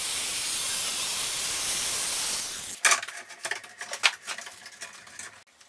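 Circular saw cutting along the bottom edge of a wooden door, a steady hissing cut, trimming the door down to fit. It stops abruptly a little under three seconds in, and a few scattered knocks and clicks follow.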